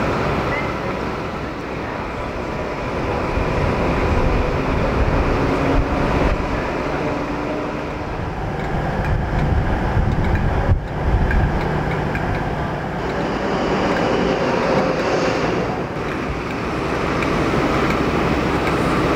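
Heritage diesel locomotives idling at a standstill: a steady low engine sound with no speech.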